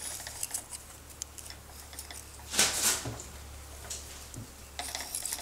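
Small metallic clicks and light scraping as a brass pin is handled and held against a lathe tool bit, with one louder brief rasp about halfway through, over a steady low hum.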